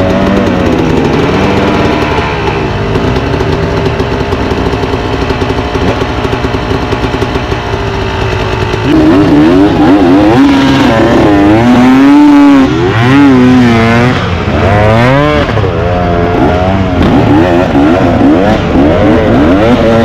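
Dirt bike engine running loud at a fairly steady pitch, then from about nine seconds in revving up and down sharply and repeatedly as the throttle is opened and closed.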